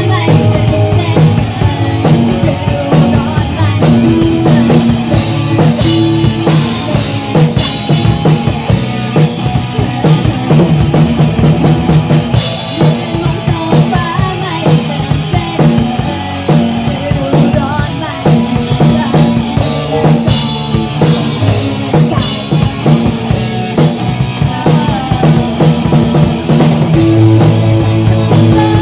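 Live rock band playing, with a drum kit prominent over electric guitar and bass.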